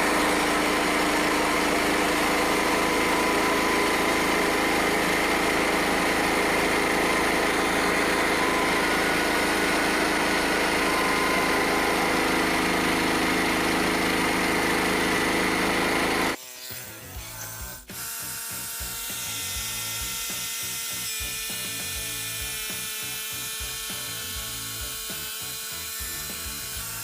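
Frontier OS27 band sawmill running steadily, its engine driving the band blade through a log. About 16 seconds in it cuts off suddenly and background music with a steady beat takes over.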